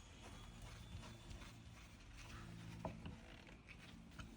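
Faint, scattered clicks and taps of plastic parts and small screws being handled, over a low steady hum.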